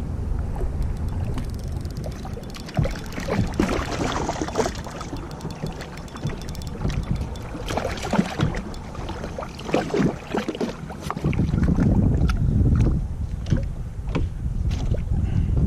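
Wind buffeting the microphone out on a kayak, with water noise and scattered knocks against the boat. The wind rumble gets heavier about eleven seconds in.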